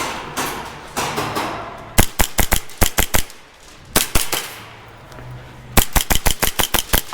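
Airsoft guns firing: a quick string of sharp shots about two seconds in, another shot or two around four seconds, and a second quick string near the end.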